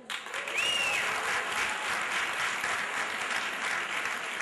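Audience applauding. The applause starts suddenly and holds steady, with one short high-pitched call rising and falling about half a second in.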